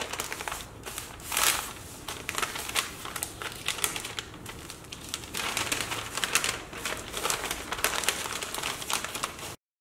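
Newspaper rustling and crinkling as it is folded by hand around a foil-wrapped food parcel, in irregular handling noises that cut off abruptly near the end.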